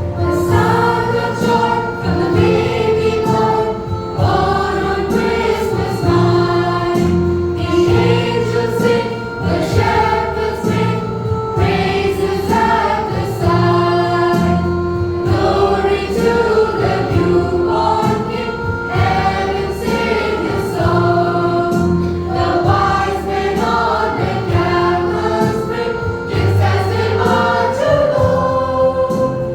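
Children's church choir singing a joyful gospel song together, with keyboard accompaniment.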